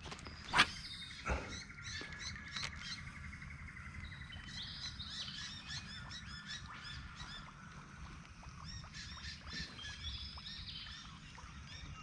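Wild birds chirping and trilling in the riverside bush, many short high calls repeating and overlapping. Two short knocks sound near the start.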